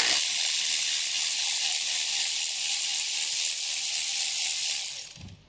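Power ratchet running on the screw that holds a diesel injector's clamp down: a steady hiss that fades out near the end.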